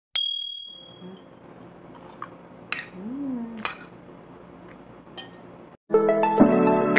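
Metal cutlery clinking on a plate while eating: one sharp ringing clink at the start, then a few light clicks. Near the end the sound cuts and music starts.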